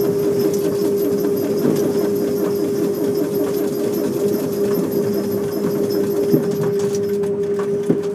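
Train Jaune narrow-gauge electric railcar running along the line, with a steady hum and a fast, continuous rattling clatter from the running gear and track, and a couple of sharp knocks near the end.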